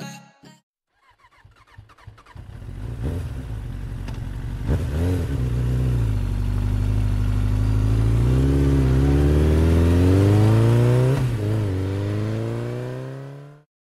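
Motorcycle engine revving: it builds up, blips twice, and climbs in pitch in long rising pulls, then cuts off suddenly near the end.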